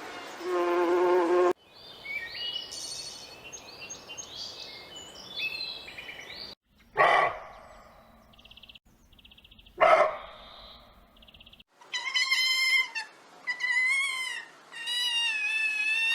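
A string of different animal calls cut one after another: a buzzing drone that stops about a second and a half in, scattered high chirps, two short sharp calls, then a run of high, wavering calls near the end.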